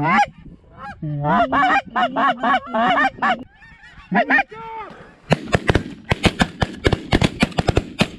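Rapid, loud Canada goose honks and clucks, the sound of goose calls working a flock down to the decoys. From about five seconds in, a rapid string of sharp cracks follows: a volley of shotgun fire from several hunters.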